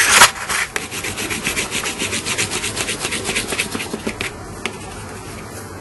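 Oil pastel scratching across black sandpaper in quick back-and-forth strokes, about five a second, the first one loudest; the strokes stop about four seconds in.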